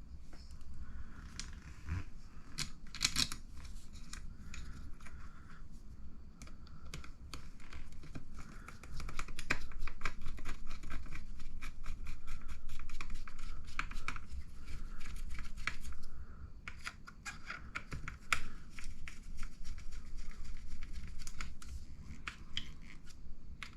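A small hand driver turning flat-head screws through bearings and a bushing into plastic RC car parts, giving rapid small clicks and scratching that grow denser about a third of the way in.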